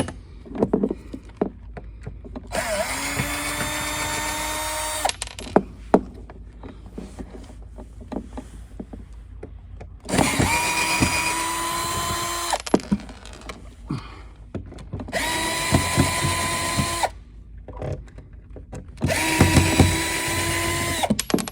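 Cordless drill-driver backing out the mounting screws of a boat's shore power outlet: four separate runs of a steady motor whine, each a couple of seconds long, one per screw, with small knocks in the pauses between them.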